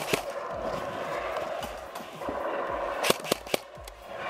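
Steady rustle and scuffing of movement through dry leaf litter, broken about three seconds in by three sharp airsoft gun shots in quick succession.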